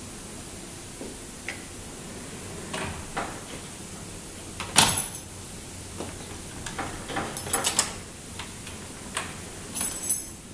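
Sliding door pushed open and shut, with sharp clacks as the Weider WL-9200T-HK mortise hook lock latches by itself in its auto-locking sash mode. The loudest clack comes about five seconds in, a quick cluster of clacks about seven and a half seconds in, and another near the end.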